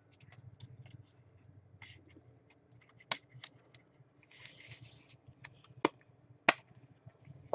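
Hard clear plastic card holder being handled: faint scattered taps, then a few sharp plastic clicks, two about three seconds in and two more near the end, with a short rustle in between.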